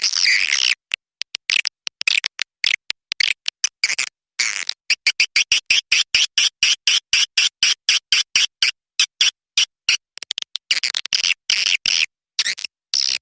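Swiftlet lure call: recorded edible-nest swiftlet twittering played as a sound track, used to attract swiftlets to a nesting house. It comes as high-pitched chirping chopped into rapid pulses, with brief silent gaps every so often.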